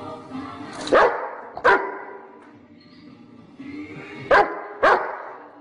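Rottweiler barking: four loud, short barks in two pairs, each pair about two-thirds of a second apart, the first pair about a second in and the second about three seconds later.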